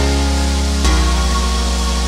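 Background music: sustained chords over a deep bass, moving to a new chord about a second in.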